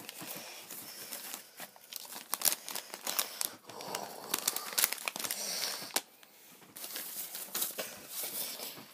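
Notebook-paper cutouts rustling and crinkling as hands move them about, with many irregular sharp crackles.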